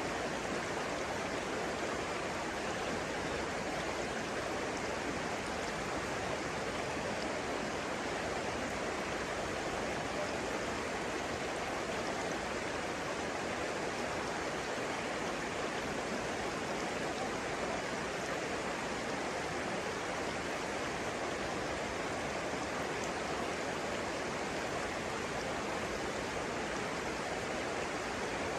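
Flowing water: a steady, even rush with no breaks.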